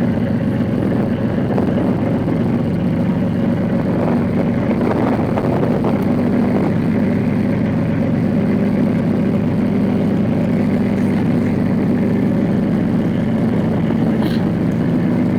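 Motor boat's engine running at a steady cruise, heard on board as an even hum.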